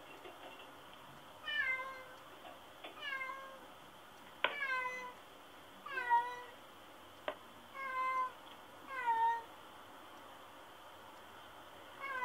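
Domestic cat meowing over and over, about seven separate calls each falling in pitch: lonely crying while left alone at home.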